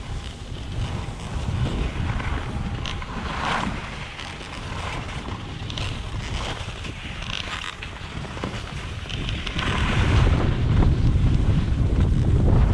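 Wind buffeting the microphone of a skier's camera during a run down a groomed slope, with the hiss and scrape of skis carving on packed snow at each turn. The wind rumble grows louder near the end.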